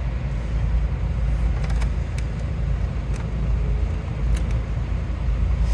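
Iveco Stralis truck engine running, heard from inside the cab as a steady low rumble, with a few faint clicks.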